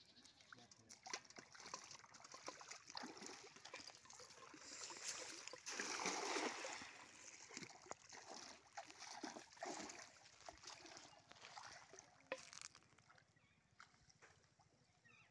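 Cast net slapping down on a pond with a splash about six seconds in, followed by smaller splashes and sloshing as someone wades into the water to haul the net.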